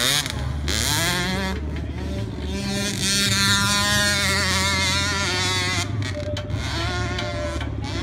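Small youth dirt bike engine revving hard under load up a steep dirt climb, its pitch rising near the start, holding high through the middle and easing off about six seconds in.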